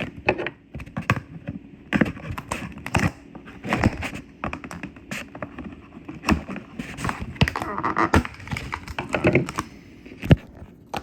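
A knife blade wedged in and prying a part off a plastic ink-cleaning cartridge: irregular clicks, taps and knocks of hard plastic being forced apart.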